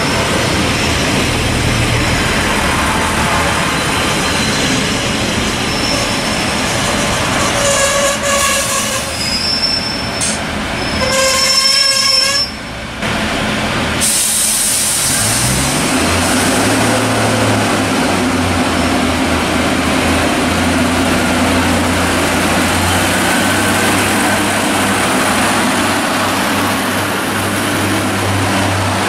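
Class 142 Pacer diesel multiple unit pulling away along the platform, with high ringing tones from the wheels and a cluster of high tones shortly before a break in the sound. After the break, the underfloor diesel engines of the trains at the platforms run steadily, one revving up about a second in.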